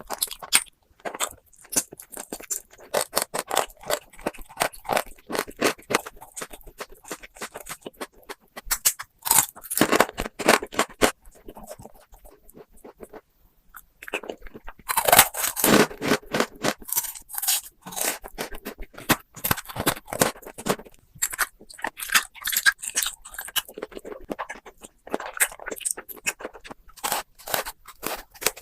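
Close-miked eating sounds: crunching, chewing and scraping in quick irregular clicks, with a short lull about halfway through.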